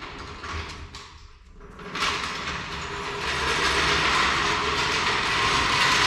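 Floor jack wheels rolling and rumbling across a concrete floor as a vehicle is pushed around on the jack. A few light knocks come first, then about two seconds in a loud, steady rolling rumble starts and keeps going.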